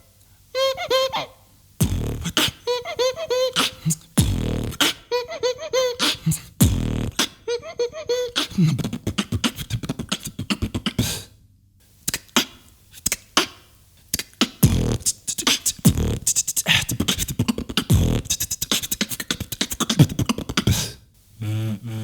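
Beatboxing: a man's mouth-made beat of kick-drum thumps and snare- and hi-hat-like clicks. In the first third, short high warbling vocal effects alternate with the thumps; after that comes a fast, dense beat that breaks off about a second before the end.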